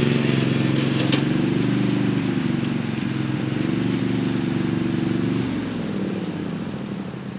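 Lawn-tractor engine running steadily as a modified garden tractor drives across a field, fading after about five and a half seconds as it moves away.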